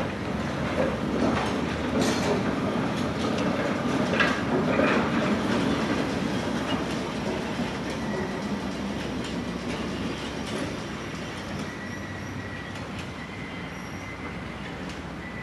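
PCC streetcar rolling over the rails, its wheels clicking over joints and turnouts, loudest in the first few seconds and then fading as it moves away. A faint thin steady squeal runs through the second half.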